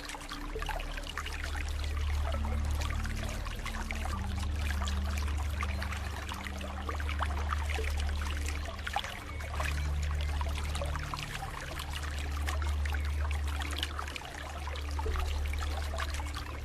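Running water trickling and splashing steadily, with soft ambient music of low held notes that change every second or two underneath.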